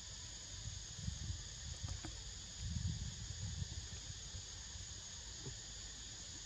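Steady high-pitched chorus of insects, a continuous buzz, with a few soft low rumbles about a second in and around three seconds.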